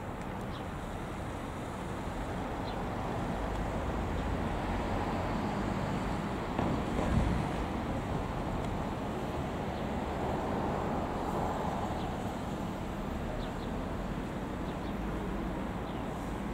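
A car driving, with steady engine and road noise and a short thump about seven seconds in.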